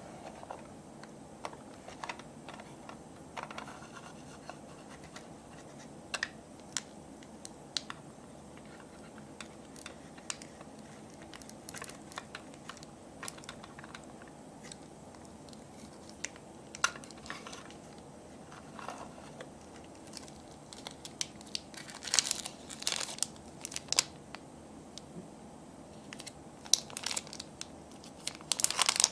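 Scattered light clicks and taps from hands on small plastic pieces, then bursts of crinkling from a clear plastic packet being handled, loudest in the last several seconds.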